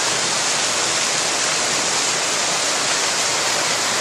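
Small mountain waterfall falling down a rock face and splashing onto the rocks below: a steady rushing of water.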